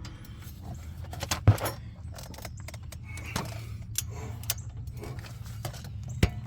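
Metal hand tools and brake parts clinking and clicking during front brake work, with a sharp knock about a second and a half in and another near the end, over a low steady hum.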